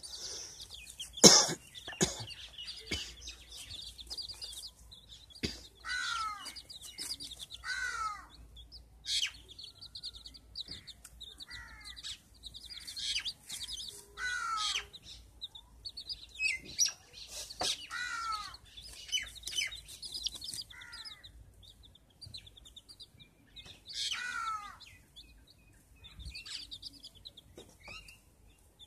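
Chickens calling: a hen and chick. High cheeping runs almost without a break, and falling calls come in pairs every few seconds. A sharp knock about a second in is the loudest sound.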